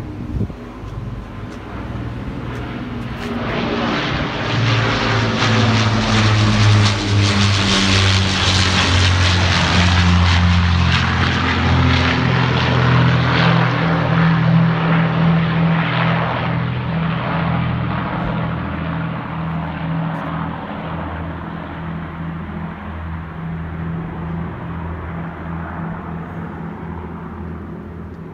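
Large propeller aircraft flying low overhead: a deep, many-toned engine drone that swells to its loudest about seven to fourteen seconds in, then slowly fades as it moves away.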